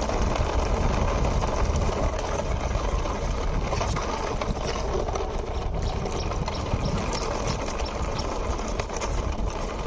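Toy car pushed along by hand, its wheels rolling over the ground in a steady noise with a few small clicks.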